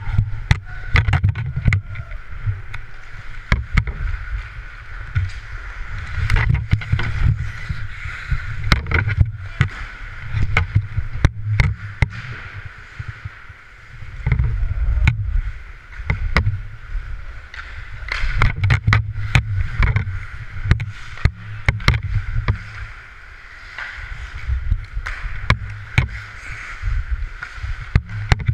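Ice hockey skates scraping and carving on rink ice, with many sharp clacks of sticks and puck, and low rumble from wind buffeting a helmet-mounted camera's microphone that swells with the skating.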